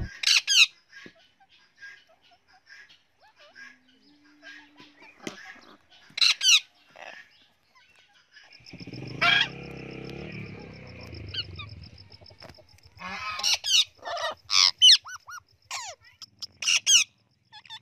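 Parrots and parakeets calling in short, harsh squawks and screeches, scattered at first and coming thick and fast near the end. A faint, steady, high pulsing chirr runs under the second half.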